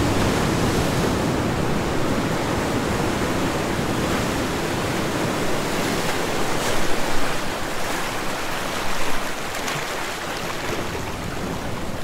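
Steady rush of wind and sea from a cruise ship under way, with a couple of brief louder gusts about halfway through.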